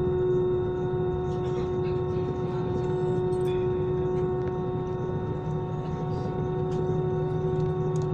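Airliner's turbofan engines running at taxi power, heard from inside the cabin as a steady whine of several fixed tones over a low rumble, with a few faint clicks and rattles.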